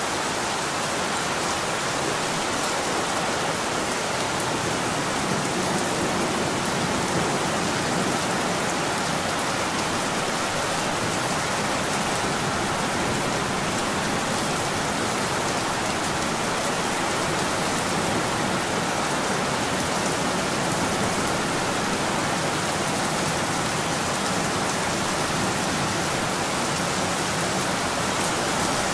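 Steady rain falling: an even, unbroken hiss of rain.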